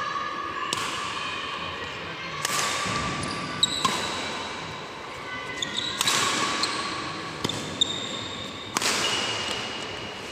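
Badminton rally: rackets striking the shuttlecock, about six sharp smacks roughly a second and a half to two seconds apart, each echoing in the large hall, with short squeaks of shoes on the court mat between the hits.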